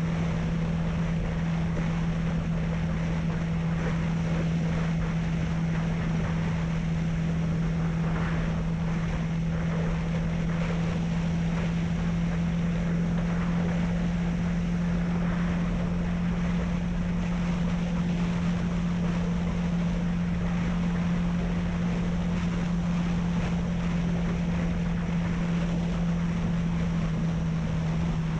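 Honda CB300F's single-cylinder engine running at a steady cruise, its pitch holding even, with wind noise rushing over the microphone.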